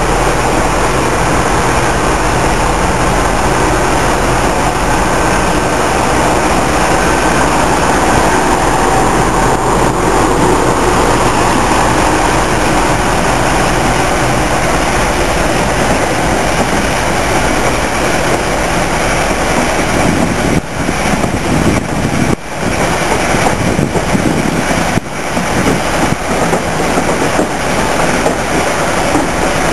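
Diesel-hydraulic locomotive engines running. First a Class 35 Hymek's Maybach engine as it draws its coaches along the platform, then a maroon Class 52 Western's twin Maybach engines running while it stands at the platform. The sound dips briefly a few times about two-thirds of the way through.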